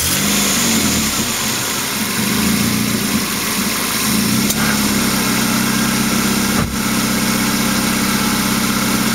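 Chevy Prizm engine idling just after being started, driving the belt and the AC compressor on its newly replaced clutch bearing. About four and a half seconds in, the idle note shifts and settles into a steadier hum, with a brief dip near seven seconds.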